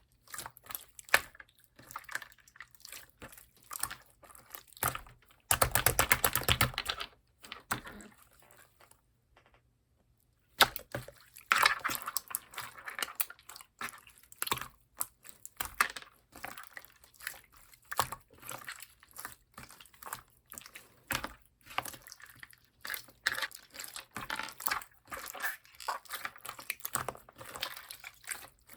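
Slime being pressed and squeezed by hand, making rapid sticky clicks and pops. About six seconds in comes a louder, longer squelch, and about nine seconds in the sound stops for roughly two seconds.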